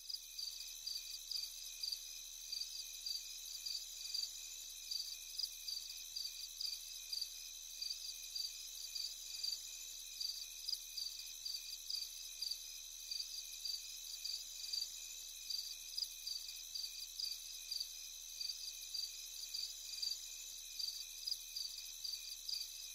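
Faint, steady high-pitched chirping that pulses a couple of times a second, over a faint low hum.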